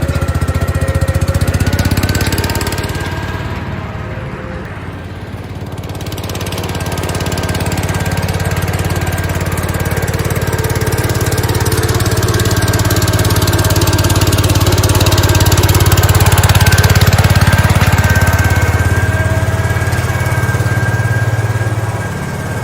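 Cub Cadet garden tractor engine running steadily. Its level dips about four seconds in and swells again toward the middle.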